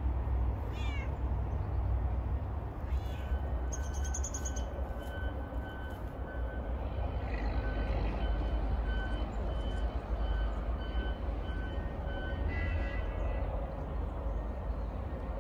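Steady low outdoor rumble, with a few short chirps early on and a faint high beeping that repeats about twice a second through the middle.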